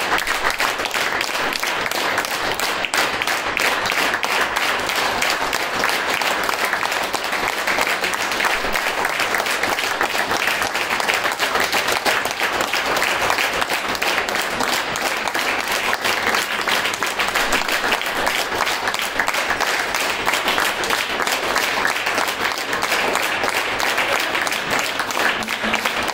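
Audience applauding steadily, many people clapping at once without a break.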